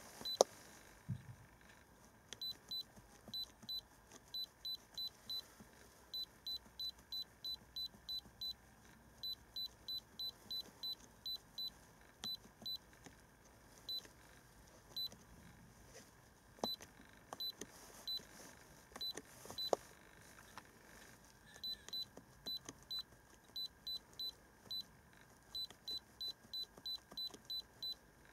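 Short, high, identical beeps from the iCarsoft i930 handheld scan tool, one per key press as its menu is scrolled, coming in runs of about two a second with brief pauses. There are a few sharp clicks, the loudest just after the start.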